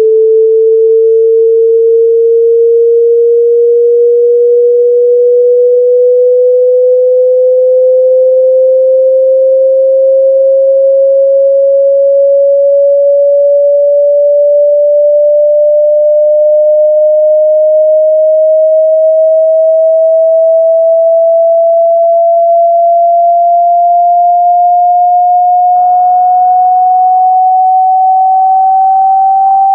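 Hearing-test sine-wave frequency sweep: a single pure tone at steady loudness, gliding slowly upward in pitch by nearly an octave.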